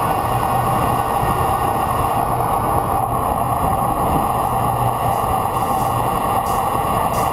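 Steady rush of wind buffeting a bike-mounted camera's microphone, with tyre and road noise, during a fast road-bike descent of a mountain pass.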